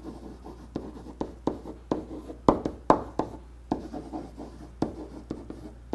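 Marker writing on a whiteboard: a run of short, irregular scratchy strokes and taps as letters are written out.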